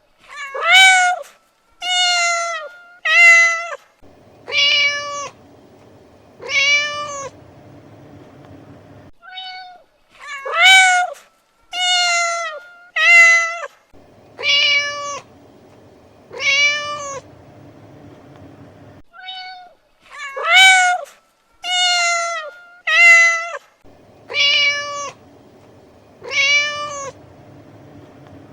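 Domestic cat meowing over and over, in a cycle of one short meow followed by five longer ones about a second apart. The cycle repeats nearly identically about every ten seconds, as a looped recording does.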